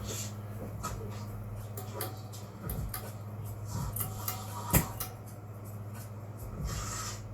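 Scattered small clicks and knocks of things being handled, the sharpest about five seconds in, over a steady low hum.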